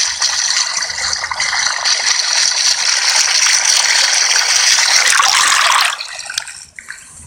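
Water gushing steadily into a whirlpool. The rush drops away suddenly about six seconds in, leaving a few faint clicks.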